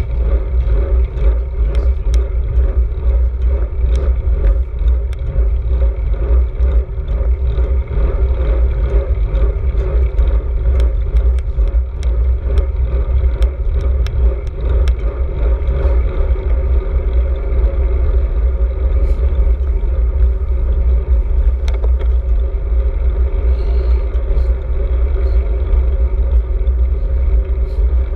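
Wind buffeting a bike-mounted GoPro Hero 4 microphone while riding a road bike, a loud steady low rumble with road and tyre noise under it. Scattered sharp clicks and rattles come through the whole ride.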